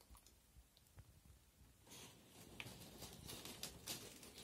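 Near silence: quiet room tone, then faint light clicks and rustling from about two seconds in.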